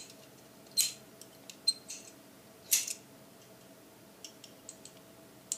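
Sharp little metal clicks from a Weihrauch HW80 air rifle's trigger unit being handled and cocked with a thin punch: louder clicks about one and three seconds in, fainter ticks between.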